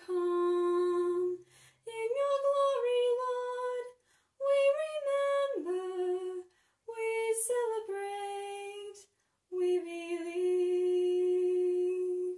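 A woman singing a hymn unaccompanied, in about five short phrases with breaths between them. The last note is held for about two seconds and then cut off.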